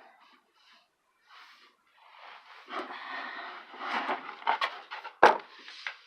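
Flat-pack shelf unit's back panel being handled and fitted against the wooden frame: rubbing and scraping with a few knocks, the loudest a sharp knock about five seconds in.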